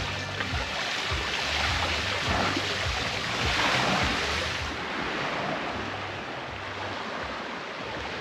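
Ocean surf washing onto the shore: a steady rushing that swells and eases every second or two.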